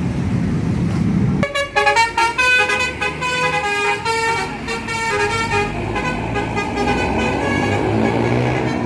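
Indonesian 'telolet' bus horn, a multi-tone horn playing a quick tooting tune of changing notes. It starts about a second and a half in, over a low vehicle rumble.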